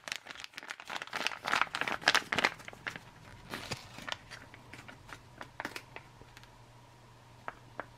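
Foil retort pouch of seasoned sausage crinkling and rustling as it is handled. The rustling is busiest for the first four seconds or so, then thins to a few scattered ticks.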